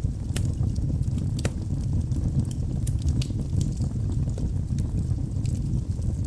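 Wood fire burning in a fireplace: a steady low rumble with irregular sharp crackles and pops from the burning logs, several a second, the loudest about half a second and a second and a half in.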